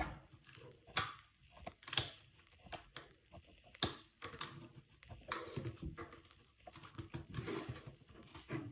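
Small sharp clicks and taps of a hand tool working on an iPhone's internals, irregular and about one or two a second, with light handling rustle between them, as a ribbon cable is freed from the board.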